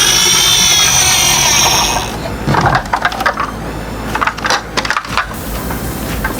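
A loud, dense sound with gliding, siren-like tones cuts off about two seconds in. A run of small, sharp clicks and rattles follows: metal and plastic parts of a diecast toy truck being moved by hand.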